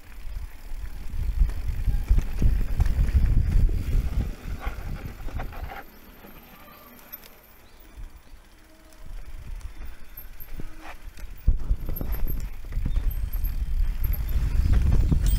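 Mountain bike riding down a rough dirt trail: heavy tyre rumble and rattling knocks from the bike over bumps. It eases off for a few seconds in the middle, then builds again.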